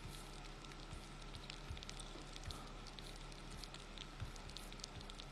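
Faint room tone: a soft hiss over a steady low hum, with scattered small ticks and crackles.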